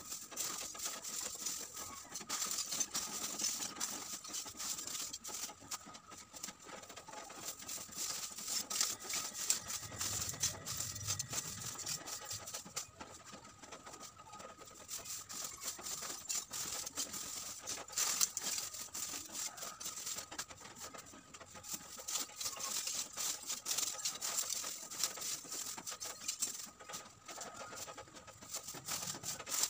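Pieces of coconut-shell charcoal clinking and scraping as they are scooped by a gloved hand into thin plastic bags, with the bags crinkling: a continuous run of small clicks and rustles.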